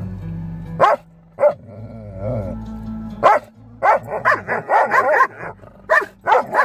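Belgian Malinois howling along to music: a few short, sharp yips in the first half, then a dense run of wavering howls and yowls in the second half.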